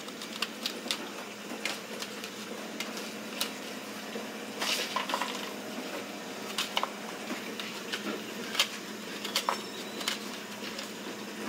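Utensils clicking and clinking against noodle bowls now and then, over a faint steady hum.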